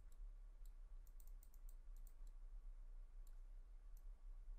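Near silence with a low steady hum, broken by about a dozen faint, irregular clicks of a computer mouse as the sculpt brush is worked over the mesh.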